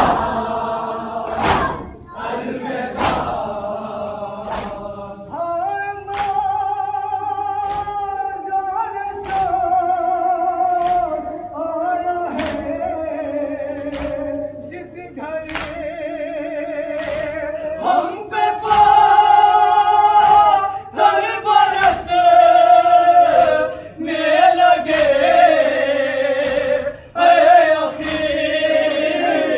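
Men's voices singing a noha, a slow mournful lament, in chorus with long wavering held notes, over sharp hand strikes on chests (matam) about every second and a half. It grows louder about eighteen seconds in.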